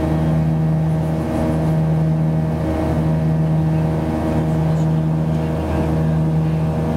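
Jet engines of a Boeing 737 airliner heard inside the cabin: a steady low drone made of several held tones that swells and dips about every second and a half, a throbbing beat.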